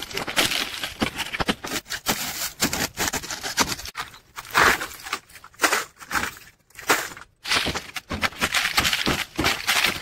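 Old PVC cooling-tower fill, clogged with dust and hard-water scale, being pried loose with a metal bar and pulled out by hand: a run of irregular crunching, crackling and scraping of plastic.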